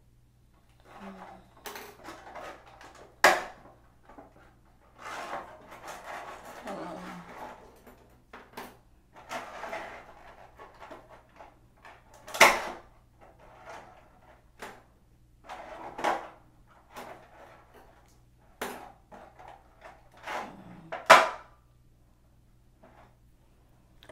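Objects being handled and set down on a hard surface: scattered clicks, taps and rustling, with three sharp knocks about three seconds in, midway through and near the end.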